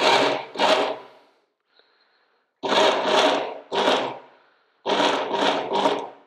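Work Sharp Ken Onion Edition belt knife sharpener, fitted with its blade grinding attachment, running in about eight short bursts of under a second each, with a pause of about a second after the first two. The belt is being run briefly, again and again, while its tracking is adjusted so that it runs in the centre of the attachment.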